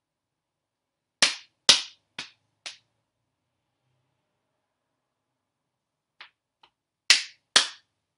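Body percussion: hand claps and slaps on the body in a short rhythm. Four sharp strokes about half a second apart, the first two loudest, then after a pause of a few seconds another four, the last two loudest.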